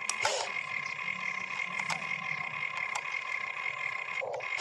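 Toy-scale RC excavator's electric motors whining steadily as the boom and bucket move through the dirt, with a few sharp clicks over the whine.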